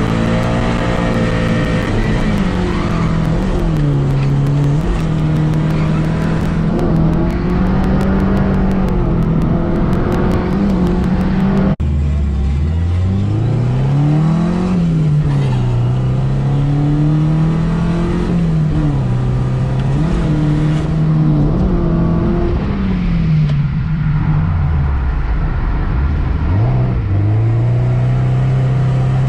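The 7A-GE four-cylinder engine of a Toyota KE70 Corolla, heard from inside the cabin, revving up and down constantly as the car is driven hard on track. The revs drop sharply about twelve seconds in and climb again, and dip low once more near the end.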